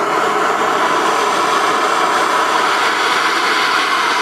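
Propane torch flame running with a steady loud hiss, heating a seized outboard head bolt; it starts suddenly and cuts off suddenly near the end.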